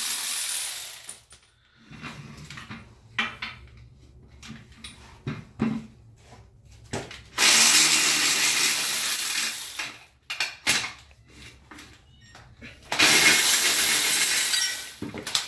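Handheld power ratchet running in three bursts of a couple of seconds each as it drives bolts into a rear differential bracket: one ending about a second in, one in the middle, and one near the end. Between the bursts come scattered metallic clicks and clinks of tools and bolts.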